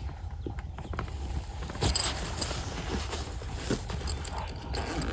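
Soft padded gun case being handled and lifted: fabric rustling with small clicks and metallic jingles from its buckles and strap fittings, loudest about two seconds in. A steady low rumble of wind on the microphone runs underneath.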